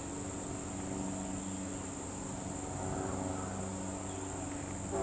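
Steady high-pitched chorus of crickets or other singing insects. A low steady hum runs underneath.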